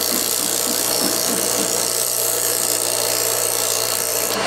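A 1.5 horsepower Century electric motor, fitted with new ball bearings, is running with a steady hum while a strip of abrasive cloth is held against its spinning shaft to polish it, giving a loud hissing rasp. The rasp stops abruptly near the end, and the motor keeps running.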